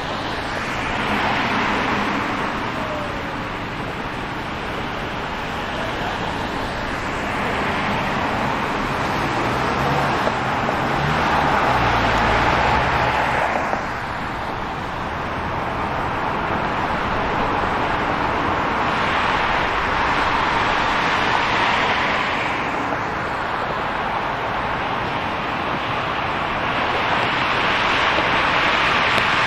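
City street traffic: cars passing one after another in swells of tyre and engine noise, the loudest about halfway through with a deeper engine sound.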